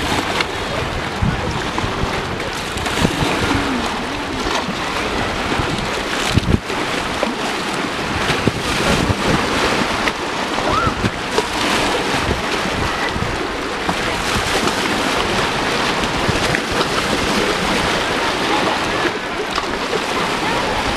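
Small lake waves lapping and washing against shoreline boulders, a steady wash of water noise. Wind rumbles in gusts on the microphone.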